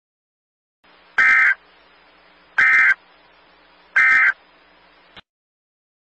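Emergency Alert System end-of-message data burst, sent three times: three short, harsh electronic screeches about 1.4 s apart over a faint hiss. They mark the end of the tornado warning broadcast.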